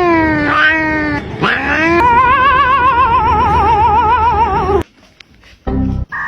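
A cat yowling in long drawn-out calls. The last call wavers rapidly in pitch for nearly three seconds, then cuts off suddenly. A short low sound follows near the end.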